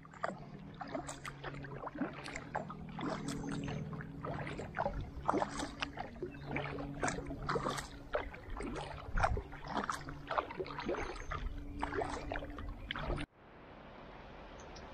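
Kayak paddle strokes splashing and dripping into the river, irregular splashes over a low steady hum. About thirteen seconds in it cuts to the steady hiss of heavy rain.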